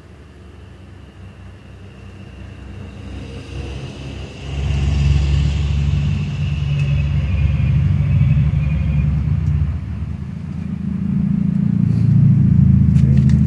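A motor vehicle's engine running close by, a low rumble that swells sharply about four seconds in and again near the end, with a high whistle-like tone over it in the first half.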